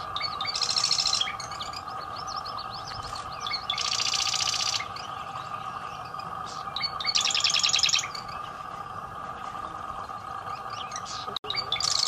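Marsh wren singing: three rapid, buzzy rattling trills of about a second each, roughly three seconds apart, with scattered short chips between them and a fourth trill starting at the end. A steady drone runs underneath.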